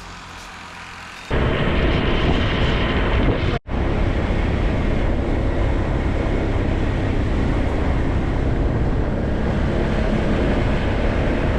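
A vehicle in motion: loud, steady running noise with a low engine hum, starting suddenly about a second in and broken by a brief drop-out a few seconds later. Before that there is a short stretch of quieter background.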